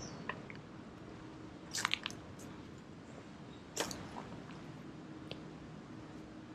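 Quiet outdoor background with a faint steady hum, broken by a few short sharp crackling clicks: a quick cluster about two seconds in and a single louder click just under four seconds in.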